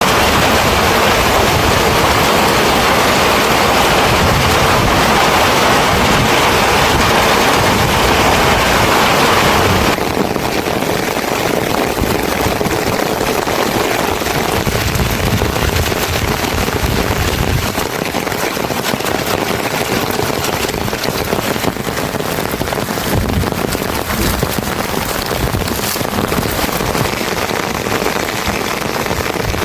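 Heavy rain falling steadily in a dense hiss; about ten seconds in it changes abruptly to a slightly quieter, duller rain.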